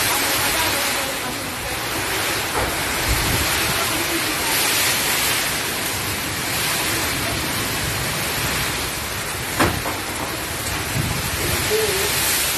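Heavy wind-driven cyclone rain pouring down, swelling and easing with the gusts. One sharp knock a little under ten seconds in.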